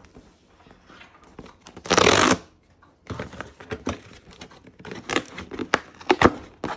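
A cardboard shipping box is torn open along its perforated tear strip: one loud rip lasting about half a second, about two seconds in. From about three seconds in, scraping and knocking of cardboard follow as the lid and flaps are worked open.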